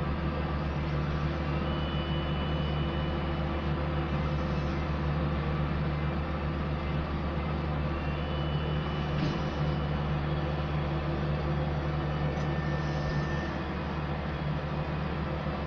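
Diesel engine of heavy road-works machinery running steadily at constant speed.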